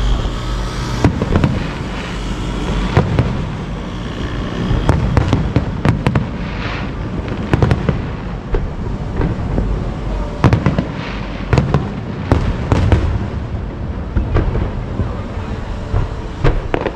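Aerial fireworks display exploding in a dense, irregular run of sharp bangs and crackles over a continuous low rumble.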